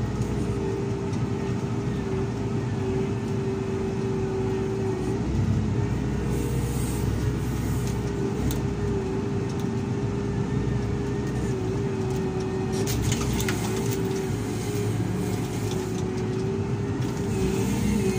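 SDLG wheel loader's diesel engine running steadily as the machine drives, heard from the operator's cab, with a constant high hum over the engine noise. A few short rattles come about thirteen seconds in.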